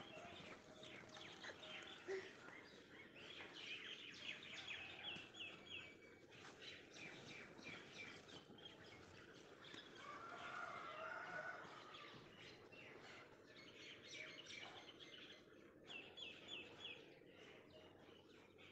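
Faint birds chirping over a quiet outdoor background. A quick series of repeated short chirps comes twice, and a lower warbling call sounds near the middle.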